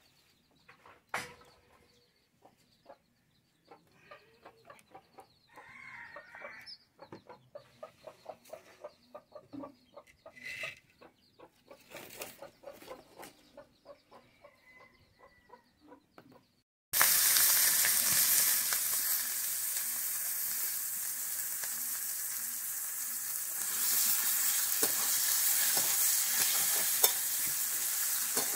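Sliced onions frying in hot mustard oil in a wok, stirred with a metal spatula: a loud sizzle starts suddenly about two-thirds of the way in and carries on steadily. Before it, chickens cluck faintly among a few small clicks.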